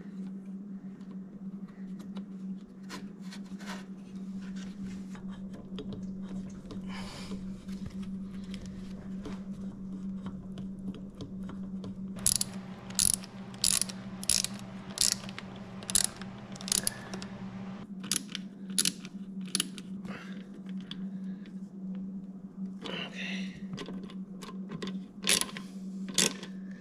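Socket ratchet clicking in short runs as worm-drive hose clamps on the radiator hoses are tightened, over a steady low hum.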